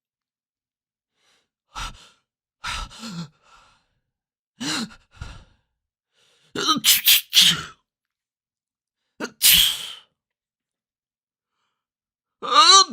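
A series of human sneezes in different styles, about six short, separate bursts with gaps of silence between them, including a quick run of three in the middle.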